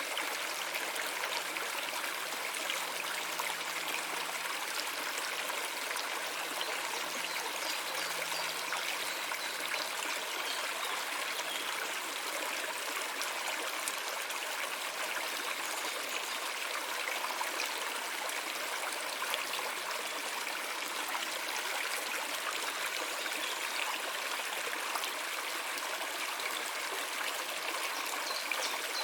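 Running water of a stream, trickling and flowing steadily without a break.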